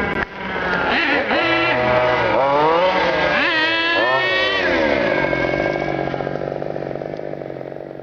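Two-stroke petrol engine of an FG large-scale RC car, revved in several quick blips, then dropping back to a steady idle about five seconds in. The sound fades out gradually near the end.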